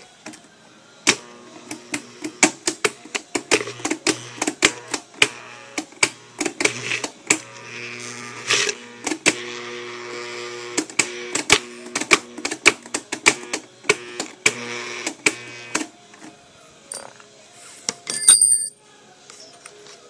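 Homemade scrap-built blender chopping torn corrugated cardboard: rapid, irregular clacking of the pieces against the blade and plastic jar, over a low hum that keeps cutting in and out. The clacking stops about sixteen seconds in, and a short loud rattle follows near the end.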